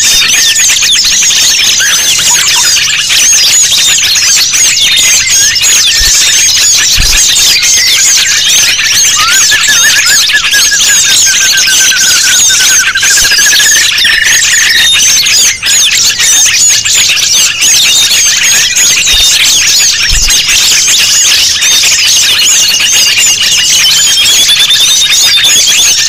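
Dense, noisy chorus of many small songbirds chirping and twittering over one another, a bird-lure mix meant to draw wild birds in. A slower wavering whistled trill rises and falls around the middle, and another comes near the end.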